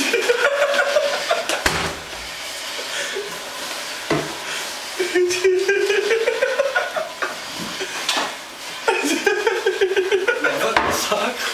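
Drawn-out wordless yells and shouts from people in a small room, with scuffling clatter and a few sharp knocks.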